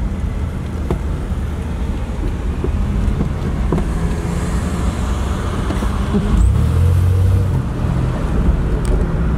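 Car driving in traffic, heard from inside the cabin: a steady low engine and road rumble that swells for a moment about six seconds in.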